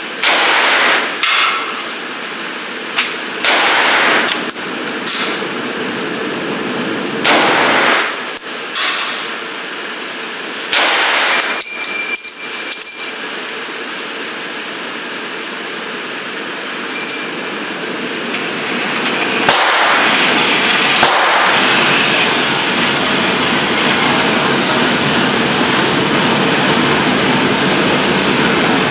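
M1 Garand rifle in .30-06 fired in a string of shots, each echoing in an indoor range. About twelve seconds in comes a high ringing metallic ping, typical of the Garand's empty en-bloc clip ejecting after the last round, and from about twenty seconds in a steady rushing noise.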